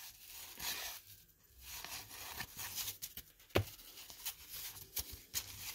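1981 Fleer baseball cards being flipped through by hand: a faint rustle of cardboard cards sliding off the stack, with a few sharp flicks, the loudest about three and a half seconds in.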